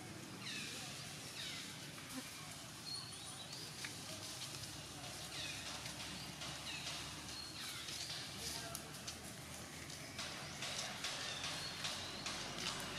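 Newborn macaque crying in a string of thin, high-pitched squeals, each falling in pitch, about one every second. From about ten seconds in, dry leaves crackle and rustle as it crawls through the leaf litter.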